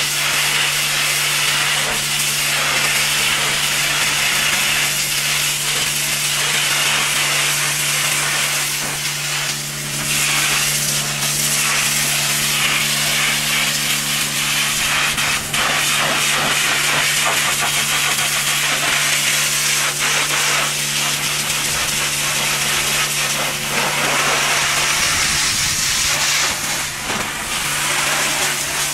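High-pressure washer jet hissing steadily as it blasts dirt off a truck tyre, wheel and wheel arch, with a steady low hum underneath.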